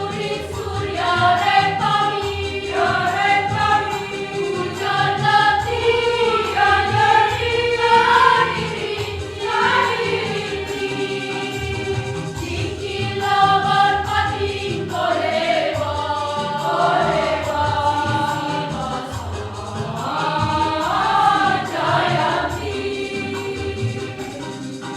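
Choir singing.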